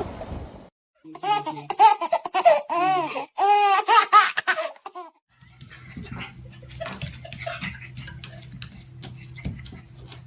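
A high-pitched voice in a quick run of short, rising-and-falling, laugh-like calls lasting about four seconds, starting about a second in. It is followed by a steady low hum with scattered light clicks.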